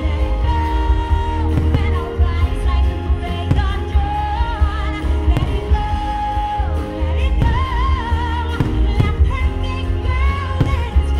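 Pop-style show music with a singing voice holding long, wavering notes over sustained chords, with a few fireworks bursts thudding underneath.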